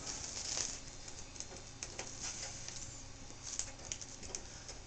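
Faint small clicks, ticks and scratchy handling noises from a small screwdriver backing screws out of a laptop's LCD screen bracket, with a few brief light rustles.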